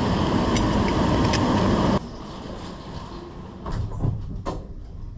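Steady rushing road noise in the rain that cuts off abruptly about two seconds in, followed by quieter background with a few short knocks.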